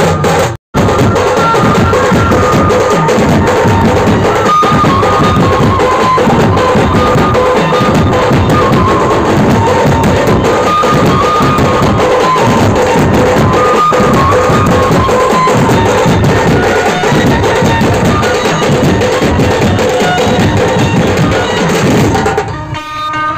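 A drum band plays loud and fast: several big drums beaten with sticks in a dense, driving rhythm, with a melody line over the top. The sound cuts out for a moment just after the start.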